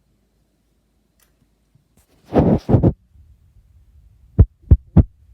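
A short burst of rustling handling noise, then three dull, low thumps about a third of a second apart.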